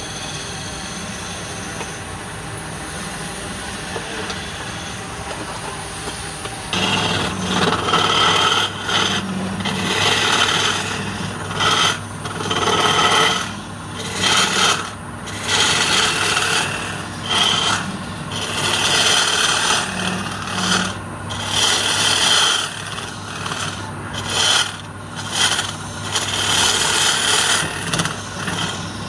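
Wood lathe turning a block of palm wood. About seven seconds in the lathe's motor hum starts, and a flat scraper cuts into the spinning wood in repeated scraping passes, each a second or two long.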